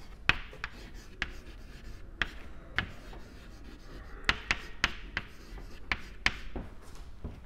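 Chalk writing on a blackboard: about a dozen sharp taps at uneven intervals as the chalk strikes the board, over a faint scratching.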